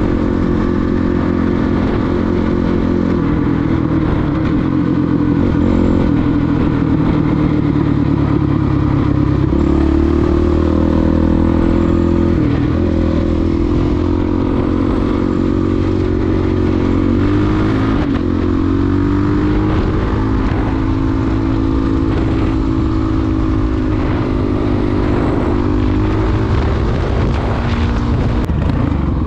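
450 cc dirt bike's single-cylinder four-stroke engine running under way on the road, heard from on board. Its pitch rises and drops several times with throttle and gear changes.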